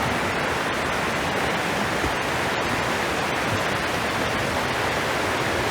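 Steady, even rush of falling water from High Falls, a tall river waterfall.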